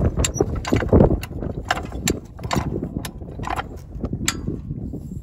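Hi-Lift jack being pumped to raise a truck: the steel climbing pins clack against the holes of the bar with each handle stroke, a run of sharp metal clicks about two to three a second.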